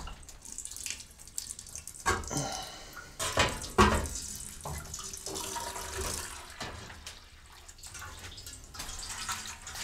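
Water running from the tap of a stainless-steel water tank into a galvanized metal bucket, with a few sharp knocks between about two and four seconds in.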